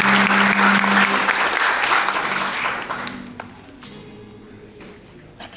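Audience applause that dies away over about three seconds, with a held low instrument note near the start and a few soft instrument notes as it fades.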